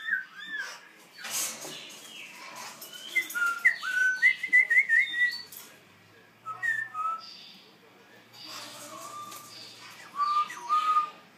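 A young black-throat songbird practising its song: clear whistled notes and short gliding phrases, halting and varied, busiest in a run of quick rising whistles about four seconds in.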